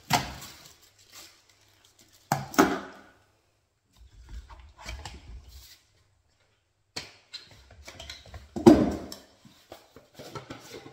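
Plastic parts of an electric paint sprayer being handled: irregular clicks, rattles and knocks, with louder clunks about two and a half seconds in and, loudest, near nine seconds in.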